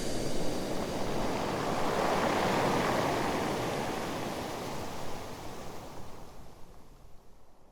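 Rushing sea noise, like surf or water washing past a hull. It swells about two seconds in, then fades out steadily.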